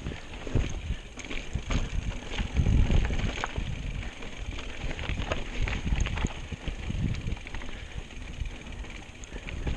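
Mountain bike rolling over a rocky dirt trail, with irregular clicks and rattles from the bike as it hits rocks and bumps. Wind buffets the microphone in low rumbles, loudest about three seconds in.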